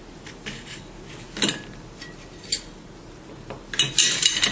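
Metal parts of an oil-free vacuum pump being handled during disassembly: a few light clicks, then a cluster of metallic clinks and rattling near the end, the loudest part.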